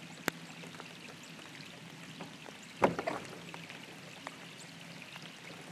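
Light rain pattering on still swamp water, a soft hiss dotted with small drop ticks. There is a sharp tap about a third of a second in and a louder cluster of taps near three seconds, as of drops striking something hard close by.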